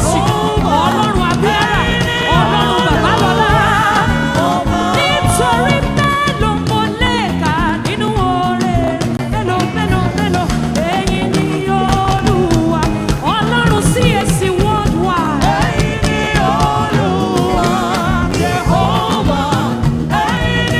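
Live gospel worship music: a band with a steady beat under singing voices.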